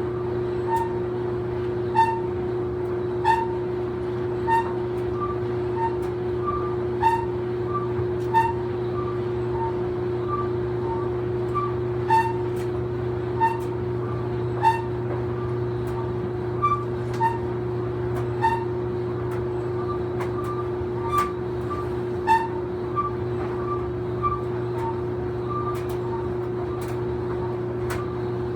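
An old clothes dryer running with a steady hum, and a high squeak that repeats about every second and a quarter as the drum turns, with fainter chirps in between.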